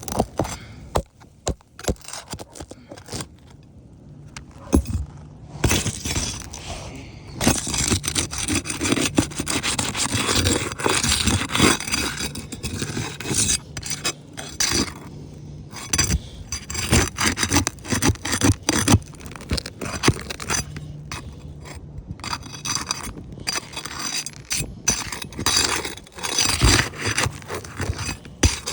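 Gritty scraping and rubbing of asphalt roof shingles as a damaged shingle is worked and pried loose, with scattered short clicks and knocks; it grows heavier and more continuous about seven seconds in.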